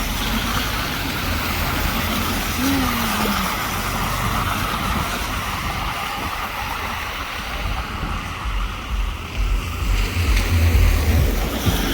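Outdoor traffic noise: cars running along a road in a steady wash, with a louder low rumble about eight to eleven seconds in.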